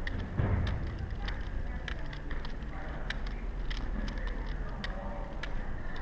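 Irregular plastic clicks and clacks of Rubik's cubes, a few a second, as the cubes are turned one-handed and caught while being passed back and forth. A low steady hum sits underneath.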